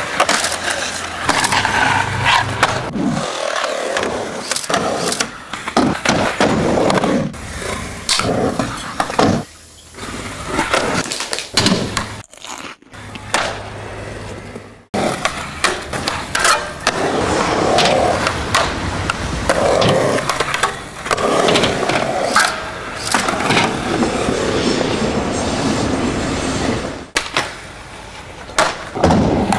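Skateboard sounds: urethane wheels rolling on concrete, sharp clacks of tail pops and board landings, and trucks grinding a concrete ledge and a low metal rail. The rolling noise is broken by a few abrupt cuts where the sound stops short.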